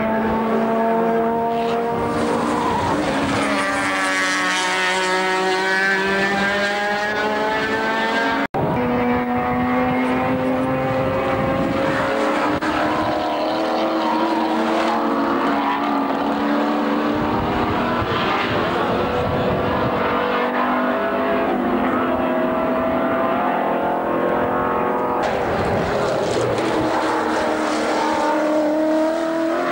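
Touring car racing engines running at high revs as the cars go by, the engine notes rising and falling in pitch as they pass and accelerate. The sound cuts out for an instant about eight and a half seconds in.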